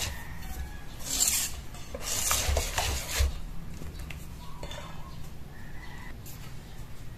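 Wire balloon whisk beating thick banana pancake batter in a stainless steel bowl, the wires scraping against the metal in short bursts over the first three seconds, then quieter.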